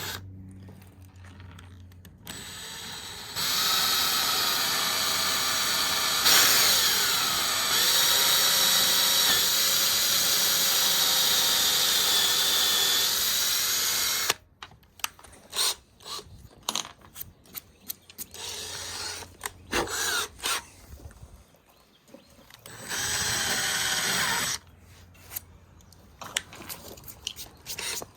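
Power drill running in a long run of about eleven seconds whose pitch dips and recovers, then again briefly near the end, with scattered clicks and knocks between the runs.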